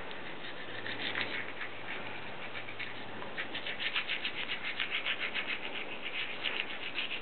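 A toothbrush scrubbing a toddler's teeth in quick back-and-forth strokes, about five or six scratchy strokes a second, busiest in the second half.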